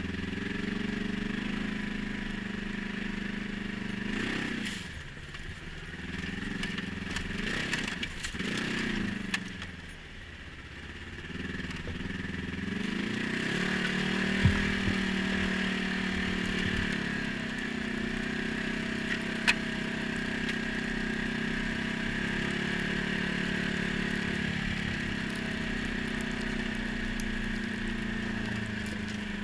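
ATV engine running under way. The revs drop and come back twice in the first ten seconds and fall low around ten seconds in, then climb and hold steady. Two sharp clicks are heard midway.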